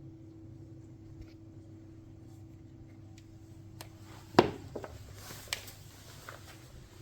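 A steady low hum, with one sharp knock about four and a half seconds in, followed by a few lighter clicks and a brief rustle.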